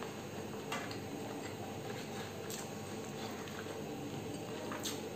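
Fingers mixing rice and curry on a banana-leaf-lined plate: soft squishing with three faint clicks, over a steady low hum.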